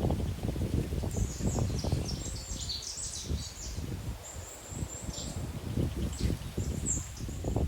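Small birds chirping in quick, high, short notes, some of them falling in pitch, over a steady low rushing rumble.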